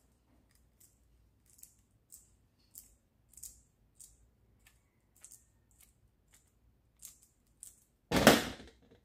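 Hand screwdriver turning screws out of a sheet sander's base plate: a run of short, high squeaks and ticks about two a second, then a loud clatter about 8 seconds in.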